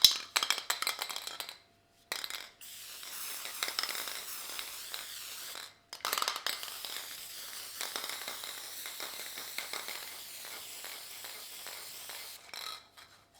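Aerosol can of spray adhesive: the mixing ball rattles as the can is shaken, then the nozzle hisses in two long spurts, about three and six seconds. The can is running empty and gives out only a little squirt of adhesive.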